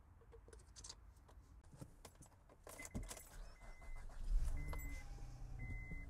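Car keys jingling and clicking, then the Honda Ridgeline's dashboard chime beeping four times about a second apart as the ignition is switched on. A low rumble comes in over the last second and a half.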